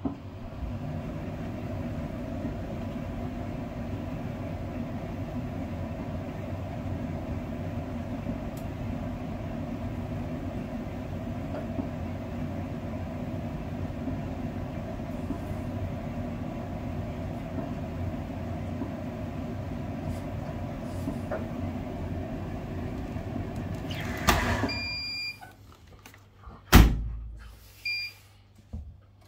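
Bosch Serie 6 tumble dryer running with a steady knocking inside the drum, the fault the machine is being shown for. About five seconds before the end the running stops with a click, followed by short electronic beeps and a few sharp knocks, one of them loud.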